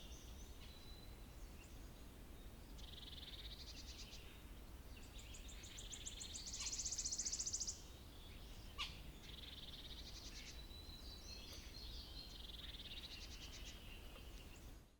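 Wild birds calling in high trilled phrases that repeat every few seconds, the loudest a fast rattling trill about seven seconds in. A single sharp tap comes about nine seconds in.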